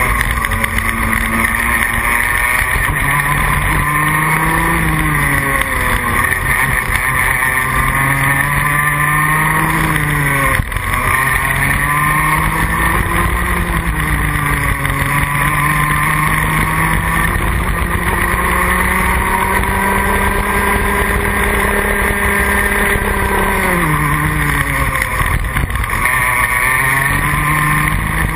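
Junior Rotax kart's 125cc two-stroke engine heard onboard, revving up and down through the corners. The pitch climbs out of each bend and falls away under braking. In the second half there is one long climb, ending in a sudden drop about five seconds from the end.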